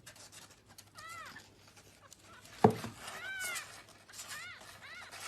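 A kitten meowing: about five short, rising-then-falling calls, with a sharp knock about halfway through.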